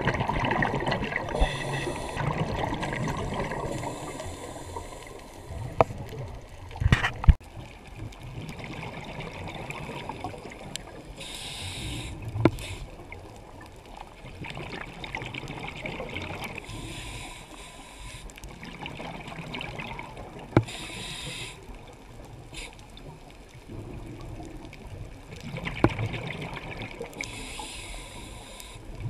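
Scuba diver's regulator breathing heard through an underwater camera housing: a slow cycle of rumbling, gurgling exhaled bubbles alternating with hissing inhalations every several seconds. A few sharp clicks or knocks come in between.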